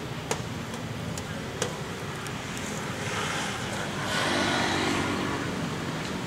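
A motor vehicle passing by: its engine and road noise swell about three seconds in and fade near the end, over a steady low outdoor rumble. A couple of sharp clicks come in the first two seconds.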